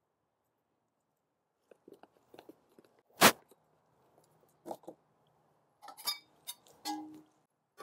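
Scattered clicks and knocks of kitchen utensils being handled, starting after a quiet opening, with one sharp knock about three seconds in. Near the end come light clinks of a stainless steel mixing bowl and spoon, with a brief metallic ring.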